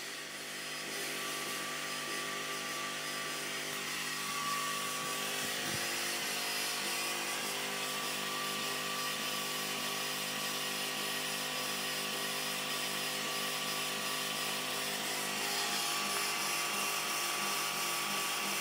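Woxcker JL7 10W diode laser engraver running an engraving job: a steady, multi-toned machine whir from its motors and fan as the laser head travels over the plywood.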